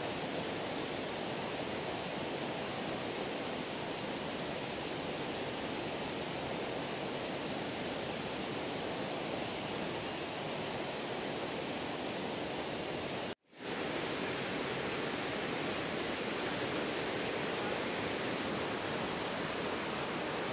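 A river rushing steadily over a rocky bed, a constant even roar of water. The sound cuts out for an instant about two-thirds of the way through and comes straight back.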